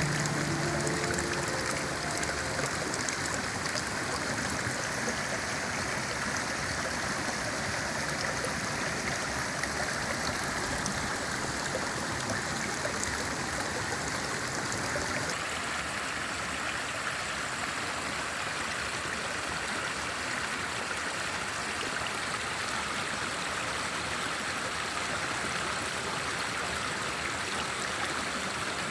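Mountain valley stream flowing, a steady rush of water whose tone shifts slightly about halfway through.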